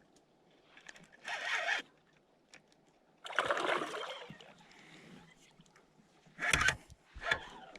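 Paddle strokes in the water: a few irregular splashing swishes, the longest and loudest a little past the middle.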